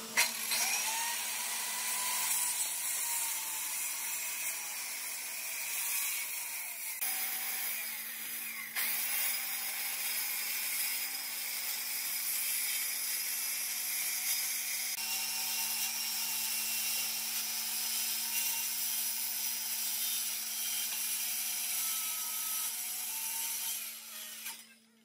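Handheld Makita circular saw ripping a long red hardwood plank lengthwise, the blade running steadily through the cut. The sound changes briefly about a third of the way in and stops abruptly near the end.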